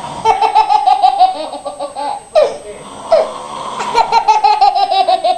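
A young child laughing in two long runs of quick, high-pitched ha-ha pulses, each run sliding slightly down in pitch, with a short break of a couple of seconds between them.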